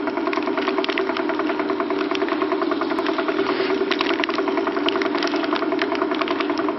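DONGTAI TM-900 continuous band sealer running: its motor and drive give a steady hum with fast, irregular rattling ticks while a filled pouch is carried through the sealing belts on the conveyor.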